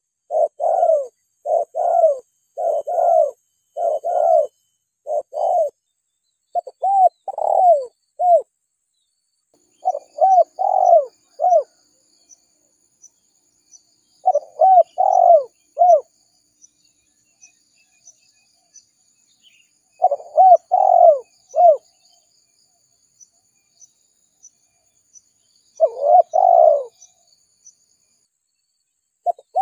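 Spotted dove (tekukur) cooing: a quick run of soft coos for the first eight seconds or so, then short phrases of three or four coos every four to six seconds. A recording played as a lure call to draw in wild spotted doves. Faint high chirps in the first few seconds, and a faint fast ticking in the background later.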